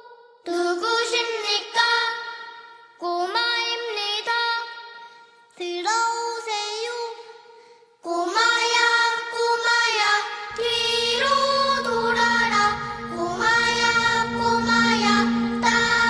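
Music: a high singing voice in short phrases with gaps between them, then singing without pause from about eight seconds in, with a low held bass note joining about two seconds later.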